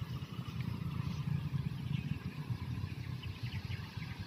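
Wind buffeting the phone's microphone: a low, uneven rumble, with a few faint high chirps about two and three and a half seconds in.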